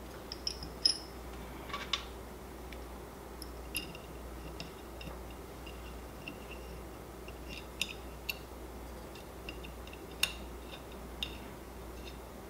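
Small, irregular clicks and ticks of a plastic fan shroud being fitted onto a 3D printer's hotend carriage and its screw being turned with a small hex key, with a few sharper clicks standing out, over a steady low hum.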